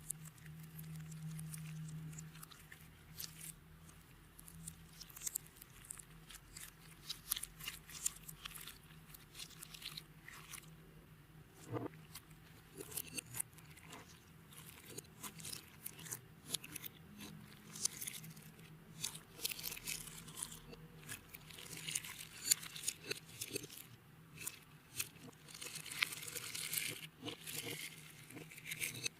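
Clear slime being worked by hand, giving a run of small sticky clicks and crackles that grow denser near the end. A steady low hum runs underneath.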